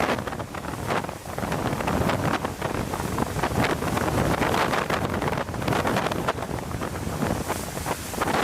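Hurricane-force wind gusting hard across the microphone, a dense rushing noise that surges and eases from moment to moment.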